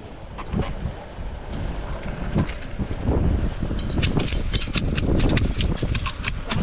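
Wind buffeting the microphone with a low rumble, joined about four seconds in by a fast, irregular run of sharp clicks or taps.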